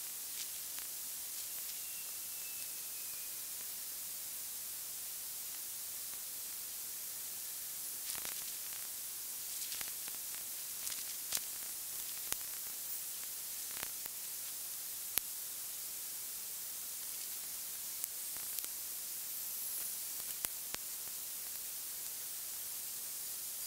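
Steady static-like hiss, strongest in the high range, with faint scattered clicks and crackles through it.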